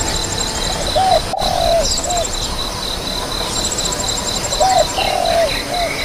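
Bird calls: short, low, hooked cooing notes and low rolling phrases repeat every few seconds, with high, thin trills and a steady insect-like pulsing chirp about four times a second.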